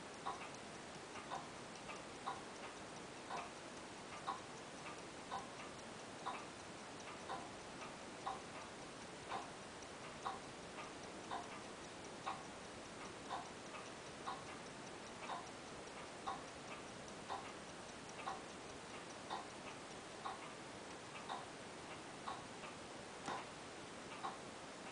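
Invicta tourbillon watch movement ticking steadily, about two ticks a second, as the tourbillon cage turns; the restorer judges its running unsatisfactory.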